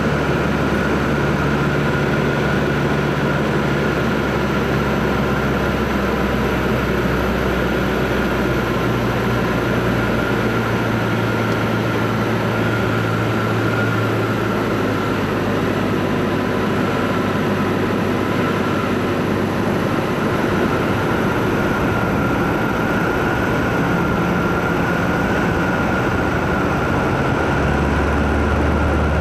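Robin 2120 light aircraft's four-cylinder Lycoming engine and propeller droning steadily, heard from inside the cockpit in flight. The low engine note shifts in pitch about a third of the way in and again near the end.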